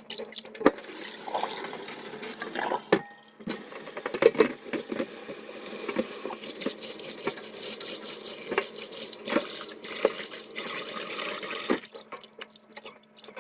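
Cold tap water running into a sink while bean sprouts are rinsed and swished by hand, with frequent small splashes and knocks. The running water stops about twelve seconds in, leaving a few light clicks.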